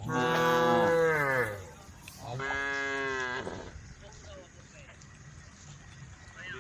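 Cows mooing: a long, loud moo whose pitch falls at its end, then a second, steadier moo about two seconds later.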